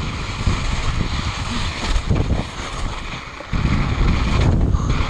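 Wind rushing over the camera microphone as a mountain bike descends fast on packed snow, with the knobby tyres rolling over the snow. The rush drops off briefly about three seconds in, then comes back louder.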